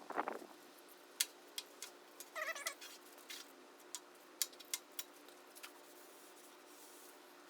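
A cat meows once, briefly, about two and a half seconds in, amid a few light scattered clicks and taps.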